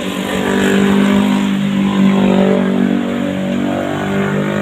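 An engine running steadily under load, its pitch rising slightly into about the second second and then holding.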